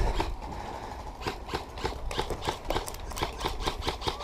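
Scattered airsoft gunfire: irregular sharp snaps and clicks, two to four a second, over a low wind rumble on the microphone.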